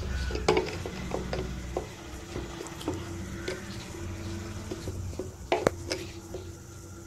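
Pliers gripping and turning a steel nut on a sewing machine motor's mounting bolt: scattered small metal clicks and scrapes, with two sharper clicks a little after halfway.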